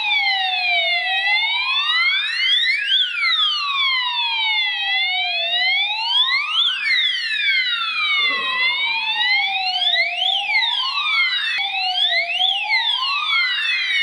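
Electronic fire alarm sounder sounding in alarm, set off by a heat detector under test: a wailing tone that slides slowly down and back up, over and over, each sweep lasting a few seconds.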